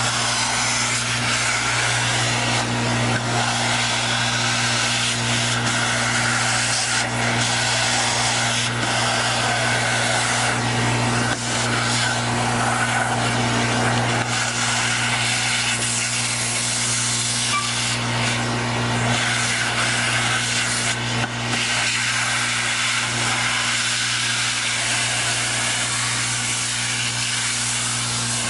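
American Vacuum Company industrial vacuum running steadily, a low motor hum under a strong rush of air through the hose, as a flat nozzle is worked over a surface to pick up Portland cement dust. The airflow dips briefly a few times as the nozzle moves.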